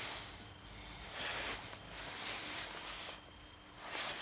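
Faint rustling and handling noise: a few soft swishes as parts are picked up and moved by hand, with no sharp knocks.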